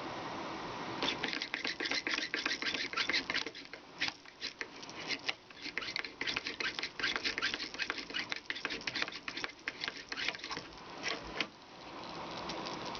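Craftsman push drill being pumped, its straight flute bit spinning and cutting a hole: a fast, uneven run of clicks and scraping strokes that starts about a second in and stops near the end.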